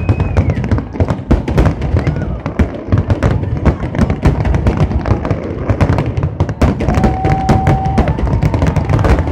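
Fireworks display going off in a dense barrage: aerial shells bursting in rapid succession, many sharp bangs and thuds overlapping with hardly a pause.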